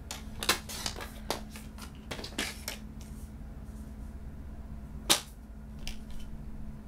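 Sliding-blade paper trimmer cutting cardstock: a run of clicks and paper rustles as the blade carriage is drawn along the rail and the card is moved, then one sharp click about five seconds in.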